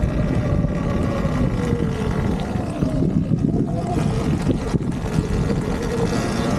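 Surron Ultra Bee electric dirt bike's motor whine, its pitch falling over the first few seconds and rising again near the end, over dense rough noise from riding the trail.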